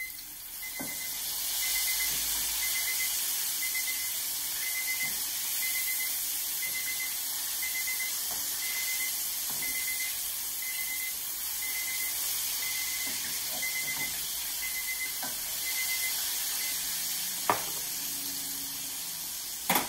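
Chicken tenders frying in hot oil in a cast-iron skillet, a steady sizzle as they are turned over with tongs. A faint kitchen timer beeps about once a second underneath and stops a few seconds before the end, and there is one sharp clink near the end.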